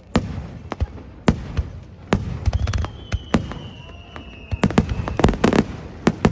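Aerial fireworks exploding: a string of sharp bangs and crackles, with a thin whistle falling slowly in pitch through the middle. A dense run of bangs comes about five seconds in.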